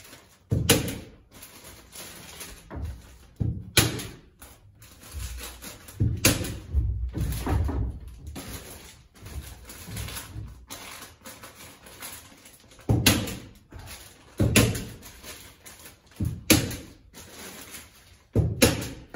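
Handling noise from a kraft-paper-faced fiberglass insulation batt being fitted into a wall cavity: irregular rustling and crinkling of the paper facing, mixed with sharp knocks and thumps against the wood framing every second or two.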